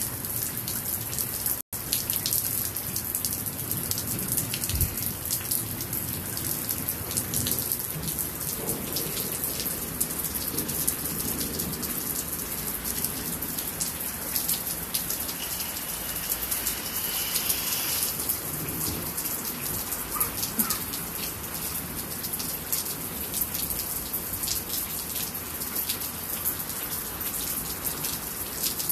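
Steady rain falling, with many close drops striking hard surfaces. The sound cuts out for an instant about two seconds in.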